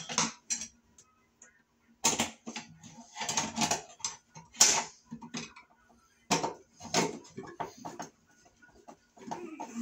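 Irregular clusters of metal clicks and rattles as a mud ring is fitted onto a square metal electrical box and screwed down with a screwdriver.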